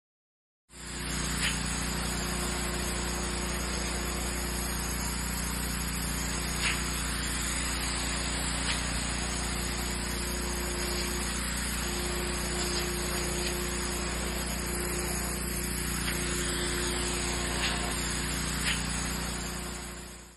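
Pressure washer running steadily: a low motor hum under the even hiss of the water spray, with a few faint clicks.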